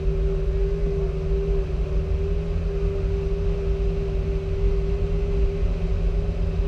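Car engine idling steadily, a constant low rumble with a steady hum over it.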